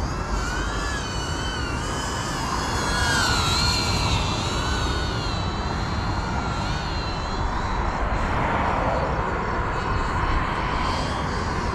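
FPV cinewhoop drone (GEPRC CineLog35) flying, its motors and ducted propellers giving a high whine that wavers up and down in pitch as the throttle changes. About eight seconds in the whine blurs into more of a rushing sound.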